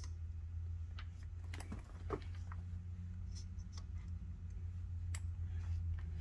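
Scattered light metallic clicks and taps from a big-block Mopar camshaft and a dial indicator being handled on the inspection stand during a runout check, with a sharper click right at the start. A steady low hum runs underneath.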